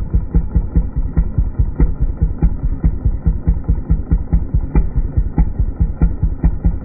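Small gas engine of a homemade log splitter idling with an even, slow beat of about five pulses a second.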